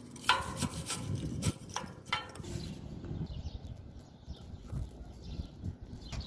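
Slag being knocked off a fresh stick weld on steel tubing: about six sharp metal knocks in the first two seconds, then softer, duller knocks and handling.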